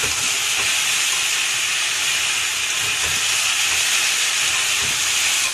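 Okra and potato curry frying in hot oil in an aluminium kadai: a steady, even sizzle, with the spatula stirring it.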